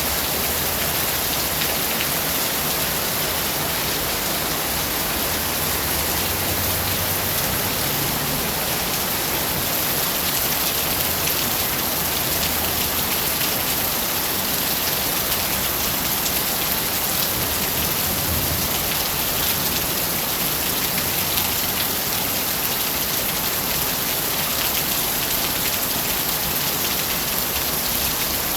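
Steady, dense rain falling and pattering on surfaces, with a faint low rumble swelling now and then underneath.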